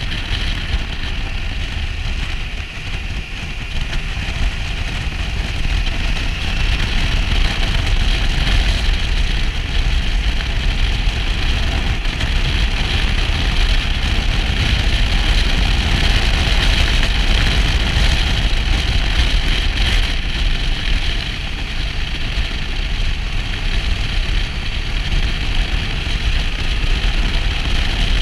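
Motorcycle riding at road speed: wind rushing over the microphone with a low rumble, the engine running steadily underneath. The level dips briefly about three seconds in, then holds steady.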